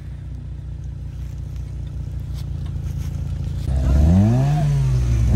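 A car engine idles low and steady, then almost four seconds in it is revved hard, its pitch climbing and falling.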